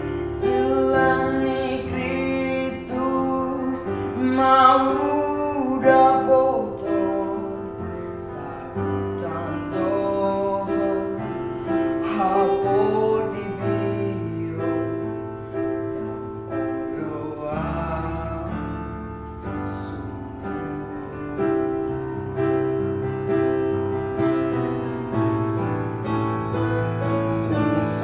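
A boy singing a song solo in held, gliding notes over a piano accompaniment.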